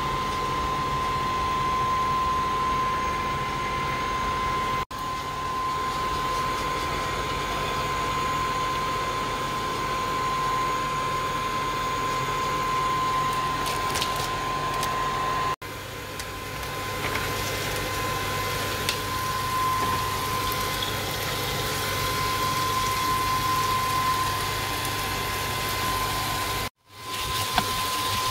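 A steady hum with a constant high whine, under faint sizzling of diced onion frying in oil in a nonstick frying pan. The sound drops out briefly three times.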